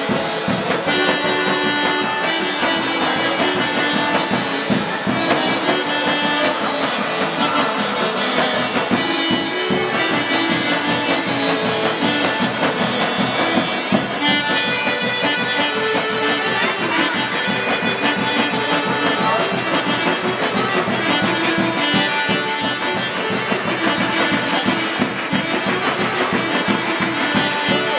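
Serbian folk dance music for a kolo, playing continuously with a quick, steady beat.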